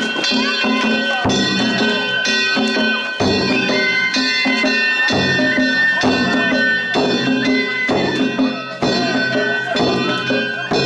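Danjiri festival music: drums struck in a steady beat about once a second, with a high flute holding long notes over them that step up and down in pitch.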